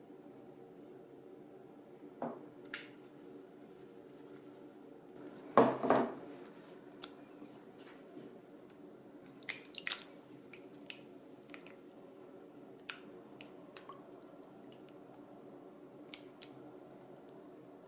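Light clicks and taps of household objects being handled, with one louder double knock about six seconds in.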